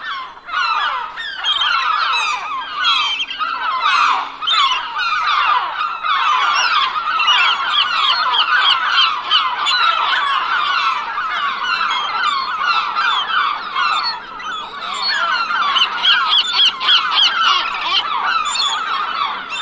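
A flock of birds calling all at once: a dense, continuous chorus of many short overlapping calls.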